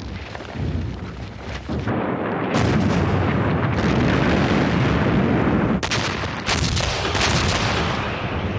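Battle sounds: gunfire and heavy explosions in a continuous din, with several sudden sharp reports standing out.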